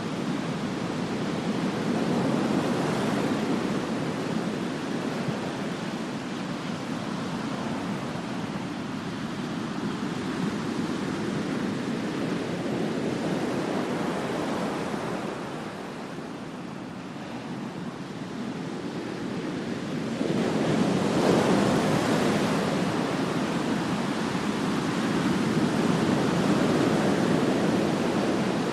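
Ocean surf: waves breaking and washing up the beach in a steady rush that swells and ebbs, with a louder wave breaking about two-thirds of the way in. Some wind buffets the microphone.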